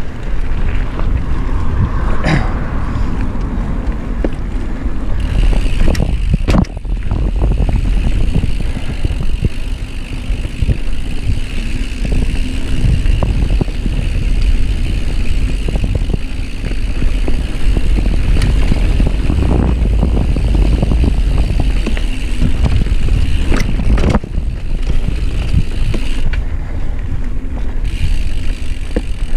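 Mountain bike ridden over a dirt singletrack, heard from a chest-mounted camera: a steady rumble of wind on the microphone and tyres on dirt, with the bike rattling over bumps. There are a few sharper knocks, about two seconds in, near six and a half seconds, and near twenty-four seconds.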